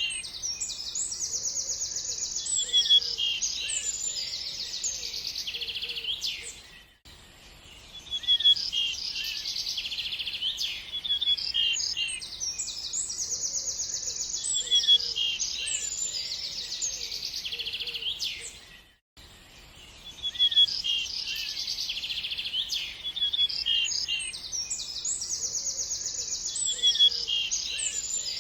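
Birdsong: several birds chirping with quick high trills and short calls. The same passage repeats about every twelve seconds, with a brief near-silent gap twice where the recording loops.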